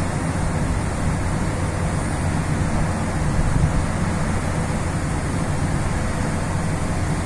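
Car ferry under way: a steady low drone from the ship's machinery, with wind noise over the deck.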